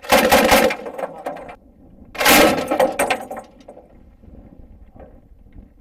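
Two bursts of automatic fire from a vehicle-mounted machine gun, each about half a second of rapid shots, about two seconds apart, with a rolling echo trailing after each.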